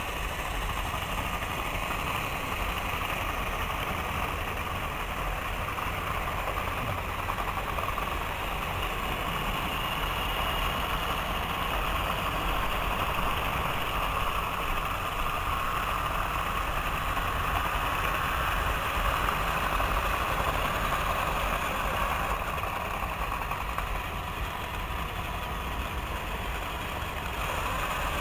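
Several battery-powered Thomas & Friends toy trains running on plastic track: a steady whir of small motors with rattling wheels, a little louder in the middle as the trains pass close.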